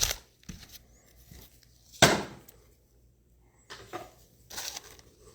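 A few brief rustles and knocks of trading-card boxes and packs being handled, the loudest about two seconds in.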